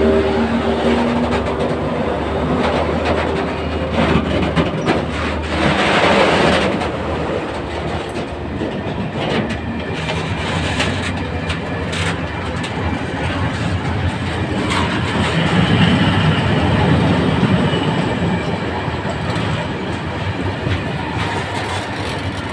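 Freight train of covered wagons and tank wagons rolling past close by: a steady rumble of wheels on rail, with clicks and clatter over the rail joints. The steady tones of the diesel locomotive that has just passed die away in the first second.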